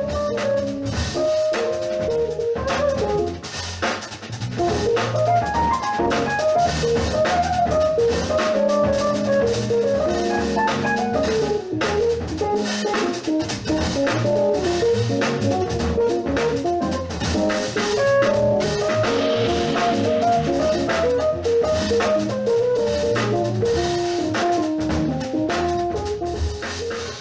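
Jazz combo playing an up-tempo tune: a keyboard solo over electric bass and a busy drum kit, with the saxophone resting.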